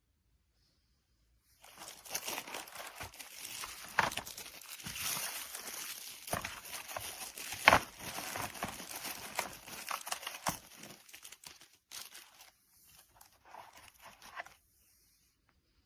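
Crinkling and rustling handling noise with scattered sharp knocks. The loudest knocks come about four and eight seconds in, and the sound dies away a little before the end.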